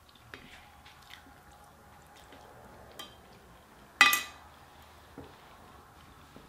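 Metal forks clicking against plates and food trays, with faint eating sounds; about four seconds in comes one loud, ringing clink of a fork striking a dish.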